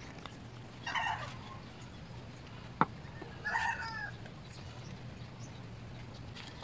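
Chickens clucking, two short calls about a second in and again near the middle, over a faint steady low hum, with one sharp tap between them.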